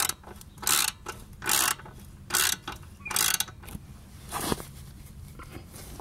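Socket ratchet turning the chain-adjuster stud on a 1981 Honda 185S, tightening the drive chain: short bursts of pawl clicking on each back-swing of the handle, about six times, a little under a second apart.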